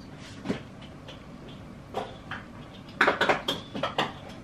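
Metal spoon scraping and clicking against a bowl as filling is scooped out, a few scattered clicks at first, then a quick run of scrapes and taps about three seconds in.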